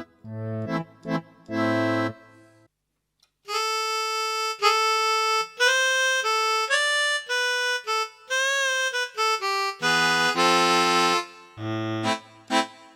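Casio AiX keyboard playing accordion-family reed tones. It opens with chords over a repeated bass, breaks off briefly, plays a single-note melody line with one wavering bent note, then returns to chords.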